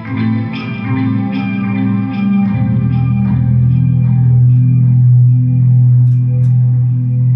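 Electric guitar played through a pedalboard of effects pedals and an amp: a few picked notes, then from about a third of the way in a low note held and left ringing.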